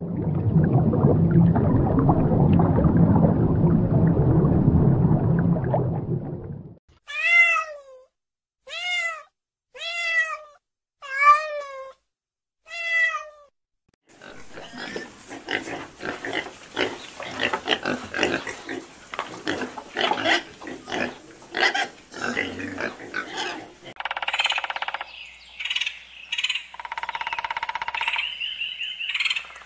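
A run of animal sounds. First a steady low bubbling and hum of an aquarium. Then six short falling calls like cat meows, spaced about a second apart. Next, pigs grunting and squealing, and near the end a bird calling in high repeated notes.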